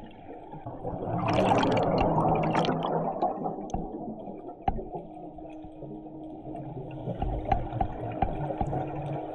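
A scuba diver's exhaled bubbles gurgling out of the regulator, heard underwater. The main burst runs for about two seconds, starting about a second in, followed by quieter bubbling with faint scattered clicks.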